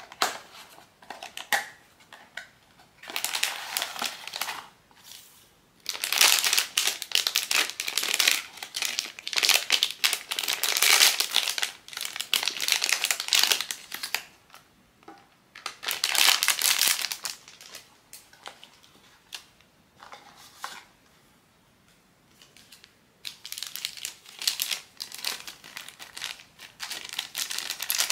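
Crinkling of blind-box packaging being handled and unwrapped, in several bursts separated by short pauses, the longest and loudest in the middle.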